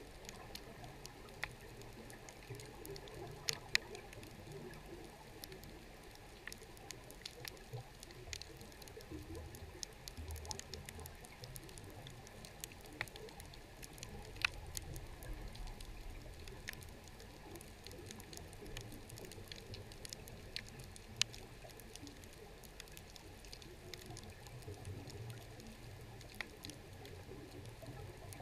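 Faint underwater ambience at a shipwreck: a low steady rumble with scattered sharp clicks and crackles at irregular intervals.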